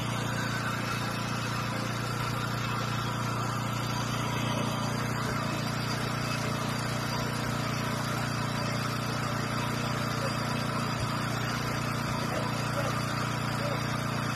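A small engine running steadily at one speed without change, the motor pump drawing water out of the flooded pit through its suction hose.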